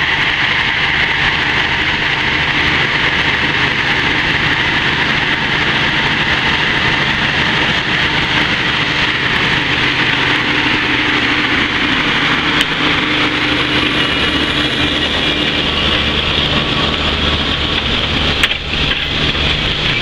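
Narrow-gauge Mk48 diesel locomotive running steadily as it approaches and passes close by, its low engine drone growing stronger as it nears. Open passenger carriages roll past near the end, with a sharp clack from the wheels on the rails.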